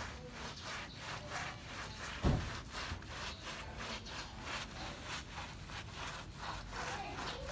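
A brush scrubbing a wet, soapy dog's coat in quick, rhythmic rubbing strokes, about three to four a second. A single dull thump comes a little past two seconds in.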